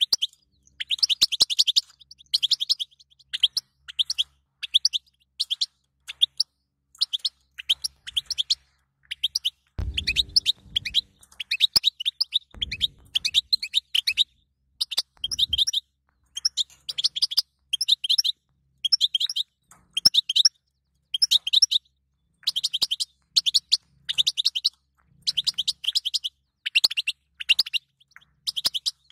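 European goldfinch twittering: quick runs of high chirps in bursts about a second long, with short pauses between them. A few low thumps come around the middle.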